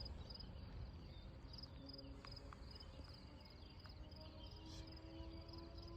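Faint insect chirping: a short high chirp repeating a couple of times a second, over a low, steady outdoor rumble.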